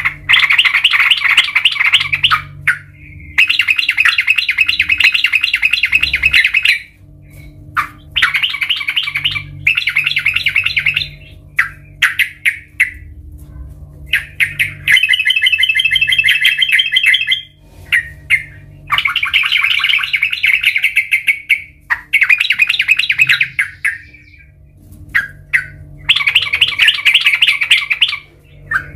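Yellow-vented bulbul singing: loud bouts of rapid, chattering notes, each lasting a couple of seconds, repeated about eight times with short pauses between. A faint steady low hum lies underneath.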